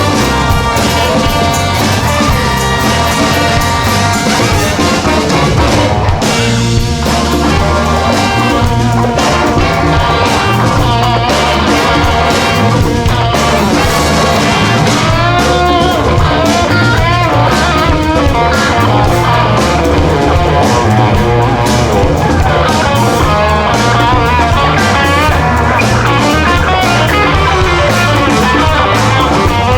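A live band playing a funk instrumental: an electric guitar leads with bending notes over a drum kit and bass.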